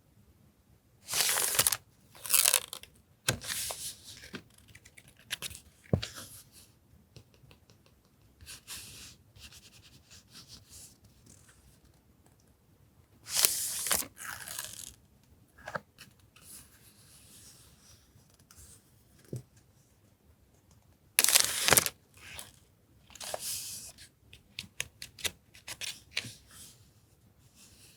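Paper goods and their packaging being handled: bursts of rustling, peeling and crinkling, with small taps between them. The three loudest bursts come about a second in, near the middle and about three-quarters of the way through.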